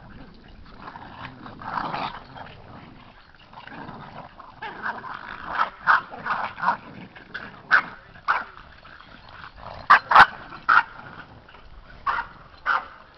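Boston Terrier puppies play-fighting and barking, many short sharp barks in quick bunches, most of them in the second half.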